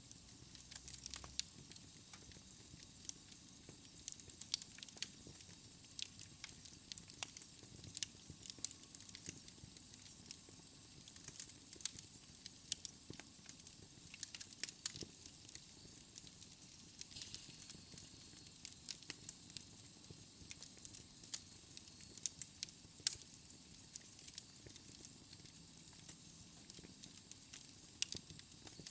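Fire burning: a steady soft hiss with frequent, irregular sharp crackles and pops.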